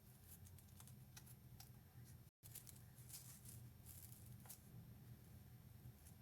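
Near silence: faint scattered taps and rustles of small craft materials being handled, over a low steady hum. The sound drops out completely for a moment about two seconds in.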